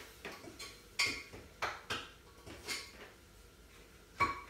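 Light metal clinks and knocks from the metal tubes and fittings of a garment rail being handled and fitted together: about five sharp knocks, each with a short ring, the loudest about a second in and near the end.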